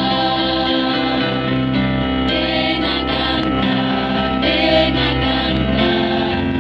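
Adult choir singing a Christmas song, led by two women at microphones, over instrumental accompaniment.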